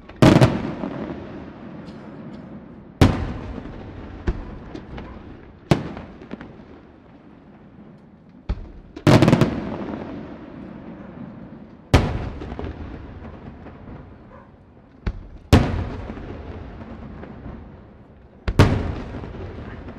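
Aerial firework shells bursting high in the air, one loud bang every few seconds, about eight in all, each followed by a long rumbling echo that dies away.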